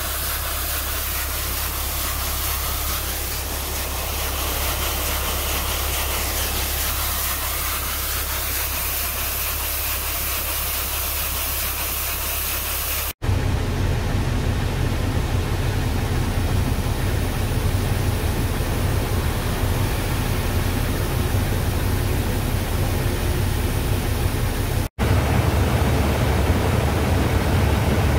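Dry shelled corn pouring in a steady rushing stream down into a grated pit, over a low machine hum. About halfway through this gives way to a truck's diesel engine running with a deep steady rumble.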